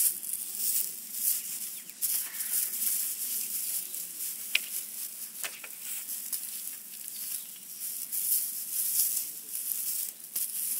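Dry grass fibres rustling and crackling as they are torn apart and fluffed by hand, in irregular swishes with a few sharp crackles.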